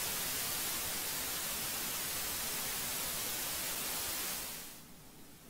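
Steady static-like hiss, strongest in the treble, fading out over about half a second near the end.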